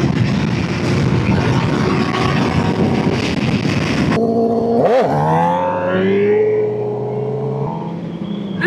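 Sport bike engine under way with heavy wind rush for about four seconds. The sound then changes abruptly to a clearer engine note that dips and climbs in pitch and then settles into a steady low running tone.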